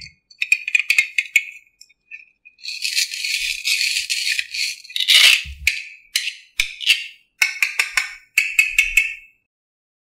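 Quick high rattling and clicking, with a few seconds of hiss in the middle, then a run of sharp clicks that stops about a second before the end.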